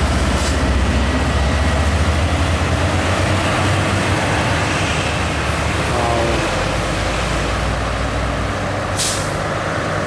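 Diesel trucks and motorcycles passing on a road: a steady low engine drone with tyre noise that changes about six seconds in, and a short sharp hiss about nine seconds in.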